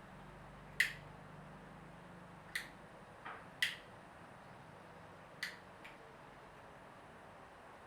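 About six short, sharp clicks at uneven intervals, the first the loudest and two of them close together near the middle, over faint room tone.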